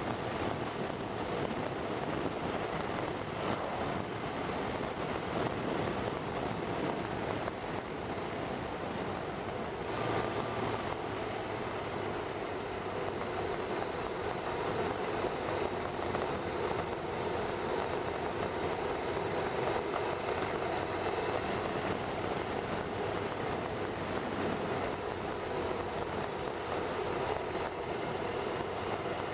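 Steady wind rush over the microphone of a motorcycle's onboard camera at road speed, with the bike's engine and tyre noise underneath.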